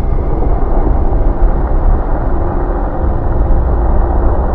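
Loud, steady, deep rumble of a grease-fire flare-up, with water flashing to steam in burning cooking oil and throwing out a fireball.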